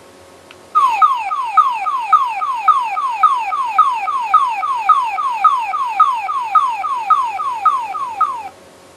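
GouraiChanger (Kabutoraiger version) transformation toy playing its electronic sound effect through its small speaker: a quick falling electronic chirp repeated about three or four times a second, like an alarm, after a click of its button. It runs for about eight seconds and then cuts off suddenly.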